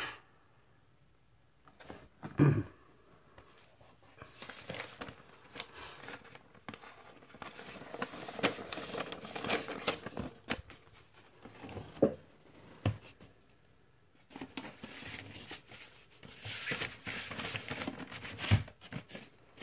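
Paper record inner sleeve and cardboard LP jacket being handled, rustling and crinkling in stretches, with a sharp thump about two and a half seconds in and a few light knocks later on.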